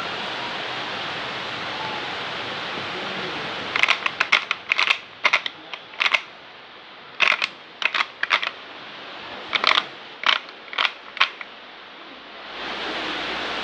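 A run of some twenty sharp, irregular clicks and taps, starting about four seconds in and stopping a little after eleven seconds, over a steady hiss.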